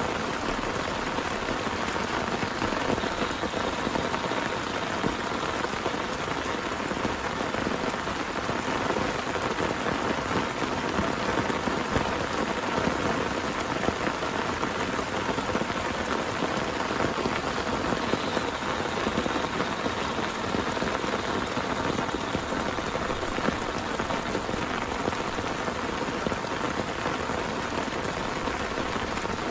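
Heavy rain falling steadily, a dense, even patter of drops on surfaces.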